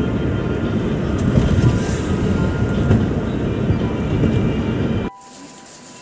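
Road noise heard from inside a moving car: a steady low rumble of tyres and engine that cuts off abruptly about five seconds in, leaving a much quieter background.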